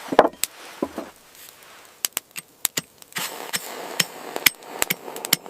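A run of sharp, irregular wooden knocks and cracks. The heaviest knock comes right at the start, and a steady hiss builds up about three seconds in.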